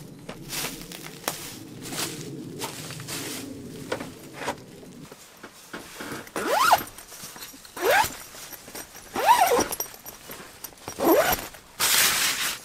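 Zip on a rooftop tent's fabric window panel being run along its track in four quick zipping strokes, each about a second or so apart, in the second half. Fabric rustles loudly near the end.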